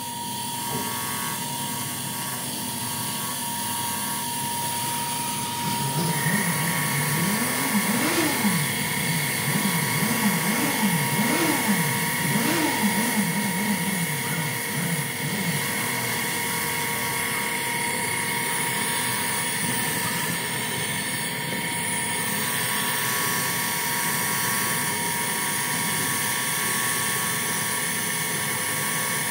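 Bench grinder running with a wire-brush wheel, a spark plug's firing end held against the spinning wire to scrub off carbon deposits: a steady high whine, with a second, higher tone joining about six seconds in.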